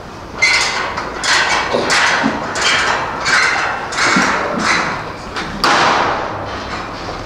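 Footsteps on hard ground at a steady walking pace: about eight sharp strikes, roughly one every 0.7 seconds, then quieter near the end.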